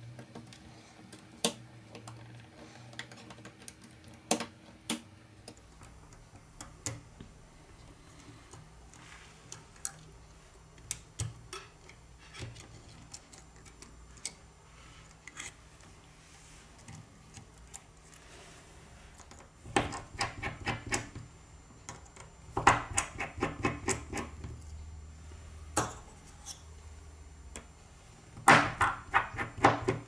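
Small clicks and taps of repair tools and fingertips against an opened smartphone's metal frame and internal parts, scattered throughout, with runs of quick rattling clicks about two-thirds in and again near the end.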